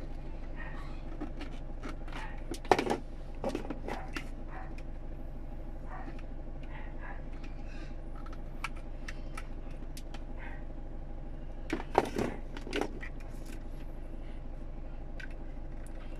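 Car engine idling steadily, heard from inside the cabin, with a few sharp clicks and knocks of handling about three seconds in and again about twelve seconds in.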